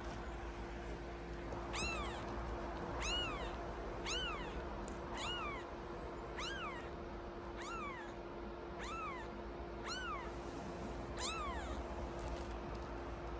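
Newborn British Shorthair kitten mewing over and over: about nine short, high calls, each rising then falling in pitch, roughly one a second, starting about two seconds in.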